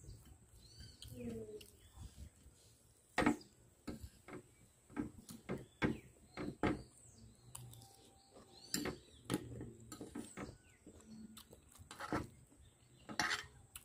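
Fork and spoon clinking and scraping on a ceramic plate with chewing in between, a dozen or so sharp irregular clicks. A few faint bird chirps in the background.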